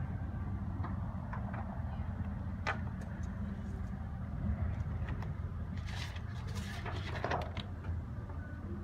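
Caulk gun laying a bead of polyurethane sealant along a window's nailing flange, with a few short clicks and scrapes from the gun. Under it runs a steady low engine hum from a portable generator.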